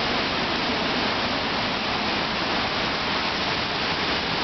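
Rapids of the Niagara River just above Niagara Falls, a steady loud rush of churning water.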